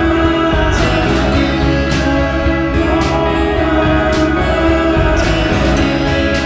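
Soundtrack music with sustained notes over a steady beat.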